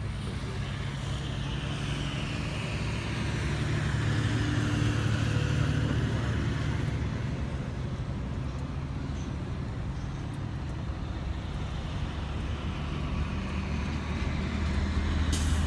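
Vehicle engine running with road and traffic noise; a passing vehicle swells and fades in the first half. A single sharp click comes near the end.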